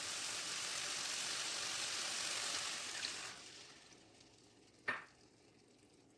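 Food sizzling in a hot pan, a steady hiss that dies away a little over three seconds in. One short clack comes near the end.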